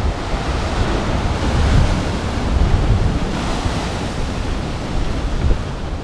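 Sea waves breaking against rocks and washing back in a heavy swell, the surf hiss swelling about two seconds in and again a little past the middle. Wind buffets the microphone with a low, gusty rumble underneath.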